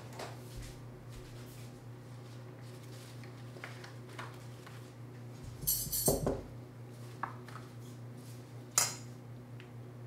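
Kitchen utensils and dishes clinking and clattering in short, scattered knocks. The loudest run of clatter comes a little past halfway, and one sharp clink comes near the end, over a steady low hum.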